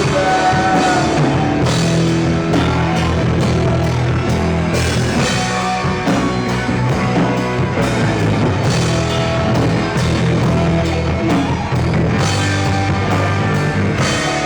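Rock band playing live, an instrumental passage on drum kit and amplified instruments with no singing.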